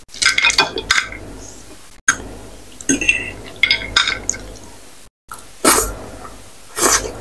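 Close-miked eating sounds: a metal fork clinks and scrapes on a ceramic plate of spicy instant ramen noodles, then the noodles are slurped twice near the end.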